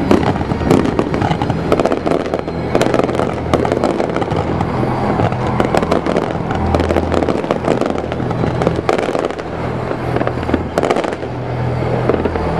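Fireworks display: a dense, unbroken run of crackles and sharp bangs from bursting shells.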